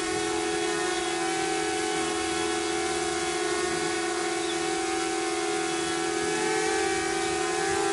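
DJI Mavic Air quadcopter hovering close by: the steady whine of its four propellers and motors, made of several held tones, wavering slightly in pitch near the end.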